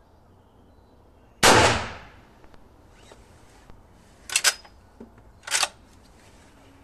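A single gunshot from a Winchester Model 1892 lever-action rifle in .44-40, about a second and a half in, loud with a short ringing tail. About three seconds later the lever is worked: two short metallic clatters about a second apart as the action is opened and closed to chamber the next cartridge.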